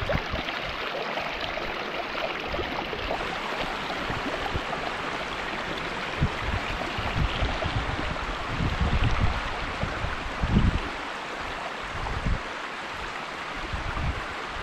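Steady rush of running water, like a stream. In the second half, gusts of wind buffet the microphone.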